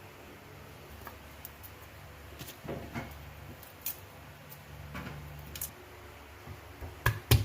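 Scattered light clicks and knocks over a low steady hum, with two sharper knocks near the end.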